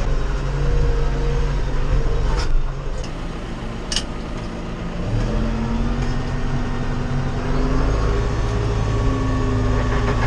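Farm tractor engine running under load while working a power harrow. The engine note eases off about two and a half seconds in and picks up again a couple of seconds later, with two sharp clicks in between.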